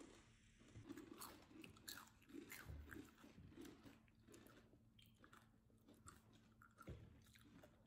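Near silence with faint, scattered small clicks and rustles, the sound of small objects being handled close to the microphone.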